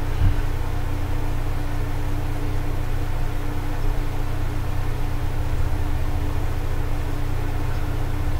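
Steady low hum with one held tone over a faint hiss, like a motor or appliance running in a small room.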